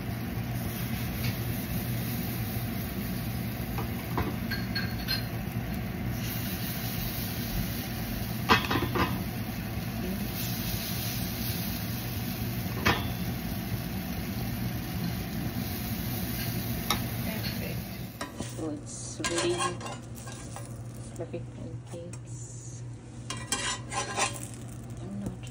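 Pancake batter sizzling on a hot cast-iron griddle, with a few sharp clinks of the serving spoon as batter is dropped on. In the last few seconds the sizzle drops and a metal spatula scrapes and taps against the pan.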